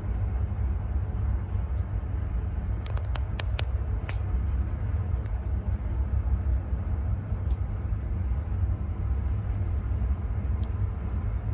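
Steady low rumble of wind buffeting the microphone aboard a container ship under way, with a few short sharp clicks about three to four seconds in.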